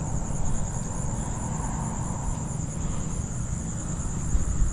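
Crickets chirring in a steady, high-pitched chorus, with a low rumble underneath.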